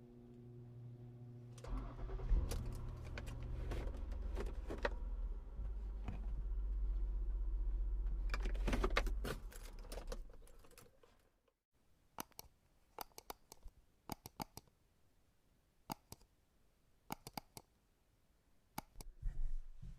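A steady low hum, then a loud low rumble full of clicks and rattles for about eight seconds that fades out. After that come scattered sharp clicks and jingles, like keys.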